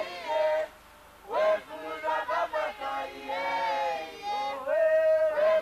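Voices singing a tune with long held notes, the last note held for about a second near the end.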